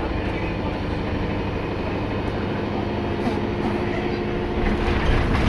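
Diesel engine of an Alexander Dennis Enviro 200 MMC bus running under way with its turbo whistling, a steady drone that grows a little louder near the end.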